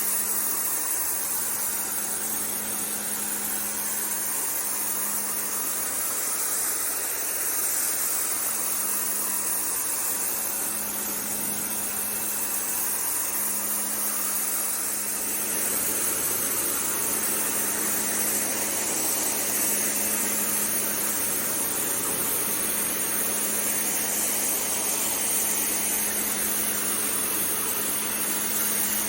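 Pressure washer running: a steady spray hiss over the constant hum of its engine.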